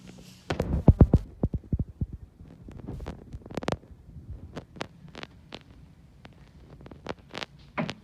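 Irregular knocks and scuffs close to a phone's microphone, a quick run of thumps about half a second in and then scattered ones: handling noise from a hand and a rabbit moving against the phone and paper bedding.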